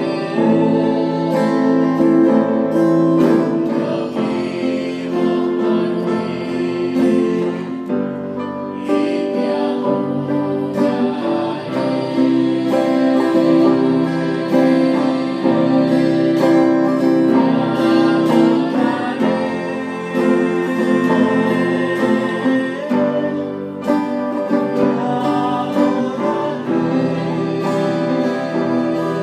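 A worship song performed live: a man singing while strumming an acoustic guitar.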